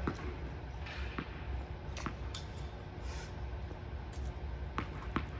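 Tennis rally: about half a dozen sharp pops of racket strings striking the ball and the ball bouncing on the hard court, one right at the start and two close together near the end, over a steady low hum.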